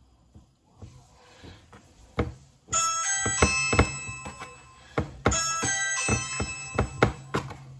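A bright chiming melody plays twice, each phrase about a second and a half long and ringing on after each note, with light knocks and taps between and under them.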